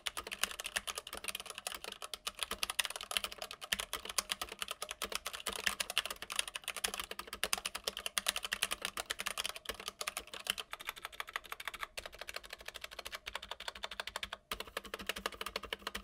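Fast typing on a stock Keychron K8 mechanical keyboard with Gateron Red linear switches: a dense, unbroken run of key clacks. The reviewer hears stabilizer rattle, switch ping and case resonance in it.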